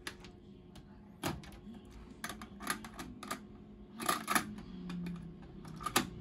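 Plastic clicks and knocks of a cassette tape being handled and loaded into the cassette holder of a Sony TC-R502 tape deck, irregular and loudest a little past four seconds in. The cassette door is pressed shut with a sharp click about six seconds in.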